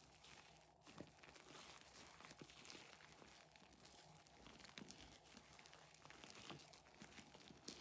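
Faint crinkling and small irregular clicks of slime being handled and worked.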